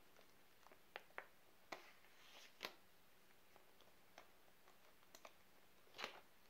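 Faint, scattered crinkles and light taps of an MRE's plastic and foil packaging being handled, with the loudest rustles about two and a half seconds in and near the end.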